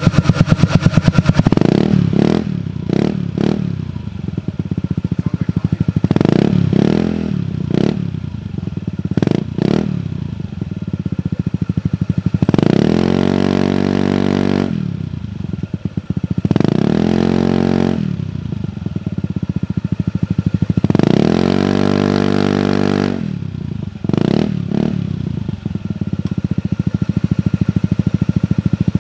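Honda Ruckus scooter engine running through a newly fitted JST4SHW side-exit (Sidewinder) silenced exhaust. Short throttle blips come first, then three longer revs that rise and fall in pitch. The exhaust note is a lot more muted.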